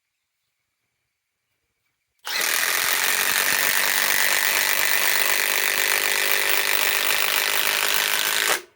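Milwaukee M18 Fuel 3/8-inch compact impact wrench hammering steadily for about six seconds as it drives a 4-inch TimberLOK screw into hard wood through an adapter. It starts about two seconds in and stops suddenly near the end.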